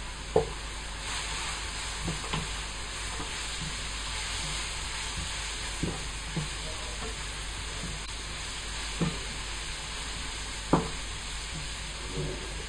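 Sliced spring onions frying in butter in a frying pan, a steady sizzle, as a wooden spatula stirs them, knocking and scraping against the pan about eight times; the loudest knocks come near the start and about two-thirds through.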